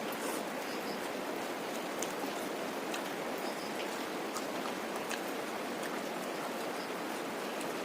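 Steady rain falling, an even hiss, with a few faint clicks.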